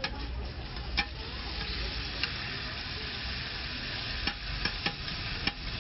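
Meat, eggs and sausages sizzling on an oiled flat-top griddle, with sharp clicks of a metal spatula and tongs against the griddle every second or so as the sauced pork slices are turned.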